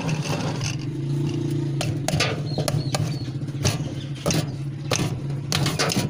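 Metal clicks and scrapes as a washing machine's pulsator is fitted by hand onto its drive shaft in the stainless-steel tub, a sharp knock every half second or so from about two seconds in, over a steady low hum.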